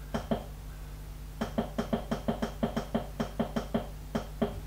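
Keypad button on a ZW-CT1 variable-frequency drive clicking under repeated presses of the up-arrow as the parameter number is stepped up. Two clicks, then a quick even run of about a dozen, then two more, over a steady low hum.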